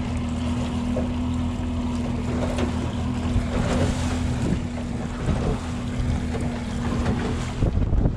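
Outboard motor running steadily at trolling speed, with wind buffeting the microphone and water washing along the hull.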